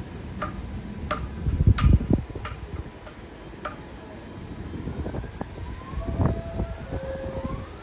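New York City subway B train moving slowly at the station: a string of sharp metallic ticks from the wheels and track, a heavy low rumble about two seconds in, then several rising whines near the end as the train's motors pick up.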